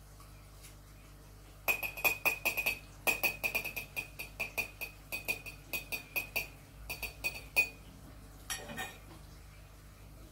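A metal fork clinking and scraping against a ceramic plate in quick, irregular strikes, each with a short bright ring, as the last bits of food are gathered up. The clinking starts about two seconds in and stops a couple of seconds before the end.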